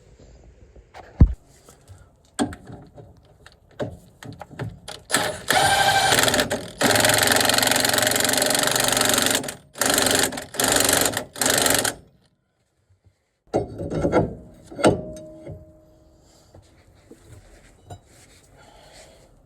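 Cordless power tool run in several bursts on a bolt, one held for a couple of seconds, the others shorter. Light clicks and knocks come before it, and metal tools clink and ring briefly after it stops.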